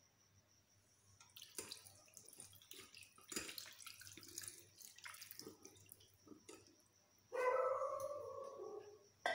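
Water poured from a small steel bowl splashing over fresh paneer curds in a cloth-lined strainer, as a hand works the wet curds to rinse out the lemon sourness. Near the end, a short wavering whine of unclear source is the loudest sound.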